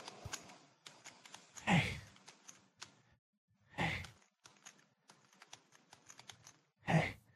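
Rapid light clicking, like keys being typed on a computer keyboard, broken three times by a short, breathy sigh or exhale.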